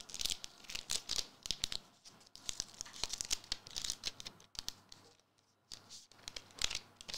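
Foil wrapper of a Magic: The Gathering collector booster pack being torn open and crinkled by hand, in a run of short ripping and rustling bursts with a brief lull about two-thirds through.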